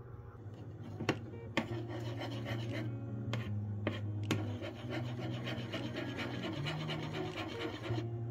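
A continuous rubbing, rasping sound with a few sharp clicks, over background music with a steady bass line.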